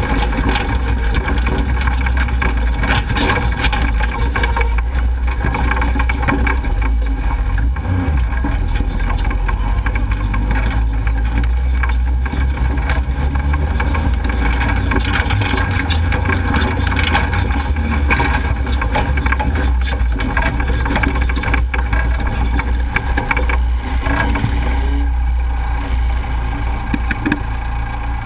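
Off-road race vehicle's engine running hard at speed on a dirt track, with a steady low engine drone under the noise of tyres, gravel and dust, heard from outside on the hood.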